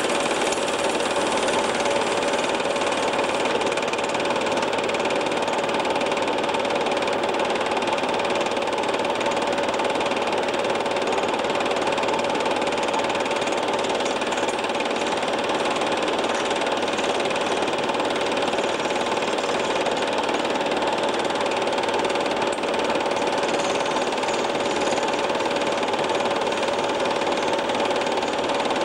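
Film projector running steadily, its motor and mechanism making a continuous mechanical noise with a few steady tones.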